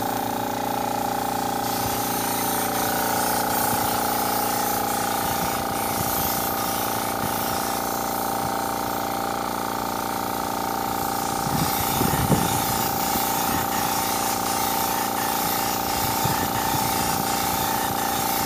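Air compressor running steadily with the hiss of compressed air through a paint spray gun, and a few low knocks about two thirds of the way through.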